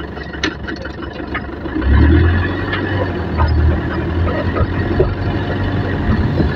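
Minibus taxi's engine heard from inside the cab, a low drone that grows louder about two seconds in as the van picks up speed, with small rattles from the cab.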